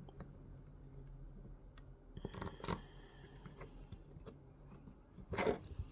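Faint small clicks and light handling of a steel M3 bolt and washer against a 3D-printed plastic part as the bolt is fitted and threaded in, with two louder short knocks about two and a half seconds in and near the end.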